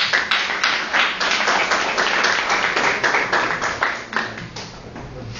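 A group of people applauding: many dense, overlapping hand claps that taper off toward the end.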